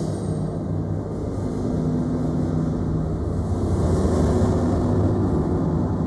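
Subway station ambience: a low, steady rumble with a faint hum.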